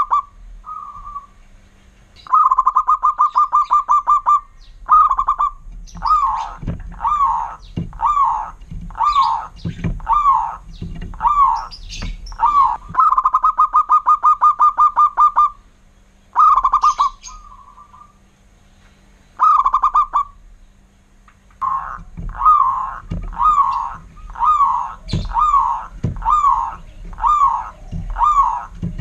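Zebra dove (perkutut) cooing loudly. Fast rolling trills of short notes alternate with runs of separate, bending coos, about one to one and a half a second, with short pauses between phrases.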